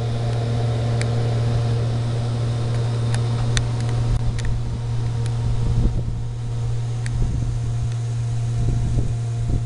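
A machine running with a steady low drone and a few faint tones above it, broken by a handful of sharp light clicks.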